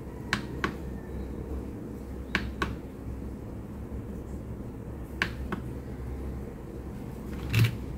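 Sharp plastic clicks in three pairs a couple of seconds apart, each a press followed by a release, from a Fantech Atom96 mechanical keyboard being operated. Near the end comes a louder click with a soft thump as the keyboard is handled.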